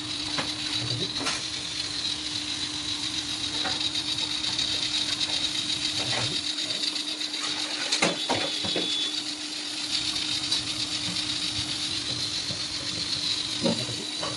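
A steady machine hum, one low held pitch with a high thin whine above it, and a few light knocks and clicks on top, the sharpest about eight seconds in.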